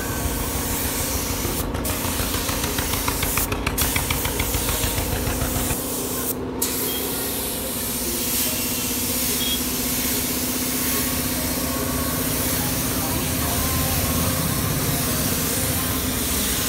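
Gravity-feed compressed-air paint spray gun hissing steadily as it sprays automotive paint, cut off three times for a moment in the first seven seconds. A steady low hum runs underneath.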